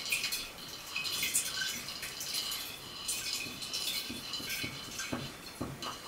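Dried juniper berries tipped from a small bowl into an earthenware jug of spirits, dropping in as a loose run of small, irregular clicks and drips.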